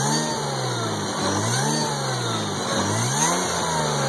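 Mazda KJ-ZEM 2.3-litre supercharged Miller-cycle V6 blipped by hand at the throttle linkage, revving up and settling back three times and picking up cleanly.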